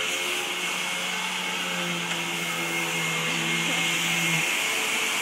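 Vacuum cleaner motor running with a steady whine and rushing air; its low hum drops out briefly near the end.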